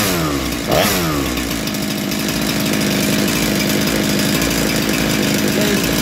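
Big-bore Husqvarna 372XP two-stroke chainsaw engine running: one quick rev just under a second in that falls away, then a steady idle.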